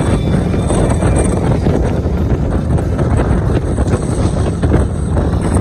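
Steady wind rush and road noise from a car at highway speed, with wind buffeting the microphone.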